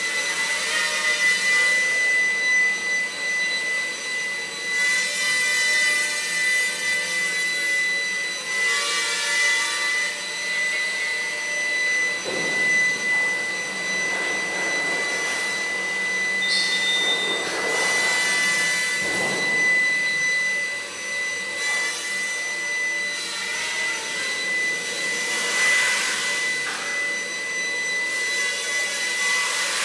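Walkera QR Spacewalker micro octocopter flying, its eight small 0720 motors and rotors giving a continuous high whine. The pitch rises and falls and the whine swells louder several times as the throttle changes.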